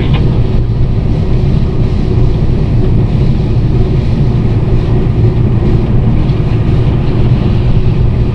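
Steady, loud running rumble inside the cab of a VL11M electric locomotive on the move, heaviest in the low range, with no change in pace.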